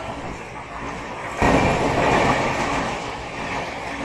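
Express train of LHB passenger coaches passing a platform at speed: a steady rush of wheels on rails and moving air. It jumps suddenly louder about a second and a half in, then eases off gradually.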